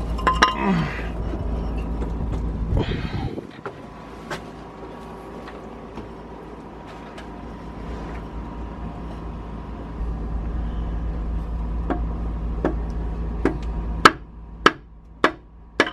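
Sharp metal-on-metal knocks from tools and engine parts during a diesel engine teardown, four in the last two seconds, over a steady low rumble.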